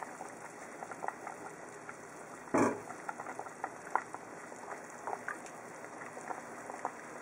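Pot of kombu dashi and sake with yellowtail and daikon bubbling at a medium boil: a steady run of small pops and crackles. One louder knock about two and a half seconds in.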